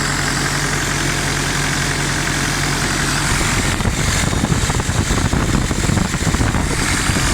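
Freshly rebuilt car engine idling. About three and a half seconds in, the sound turns rougher and choppier.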